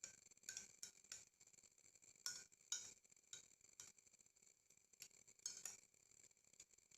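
A metal spoon stirring a drink in a glass, clinking lightly and irregularly against the side, each clink with a short glassy ring.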